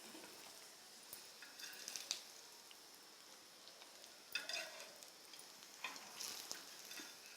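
Faint sizzling of hot oil in a frying pan, with a few light scrapes and clinks of a spatula and plate, about three brief bursts, as shallow-fried sago-potato tikkis are handled.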